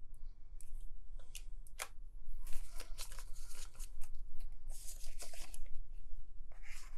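Paper banknotes and clear plastic binder envelopes rustling and crinkling as bills are handled and pages of a ring-binder cash wallet are turned, with scattered small clicks and taps.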